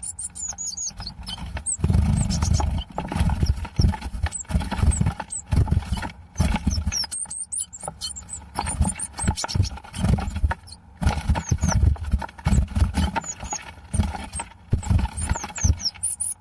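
Small birds (tits) chirping in short, high calls over repeated irregular thumps and scuffling, typical of two birds fighting at a wooden birdhouse.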